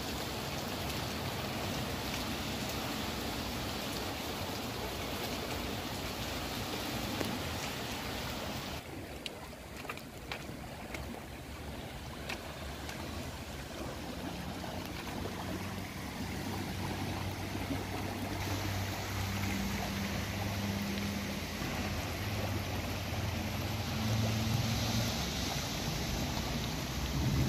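Floodwater gushing up out of a storm-sewer manhole and drain grate, a steady rushing churn of water: the sewer is overloaded by a cloudburst and is backing up into the street. A low hum joins in about halfway through.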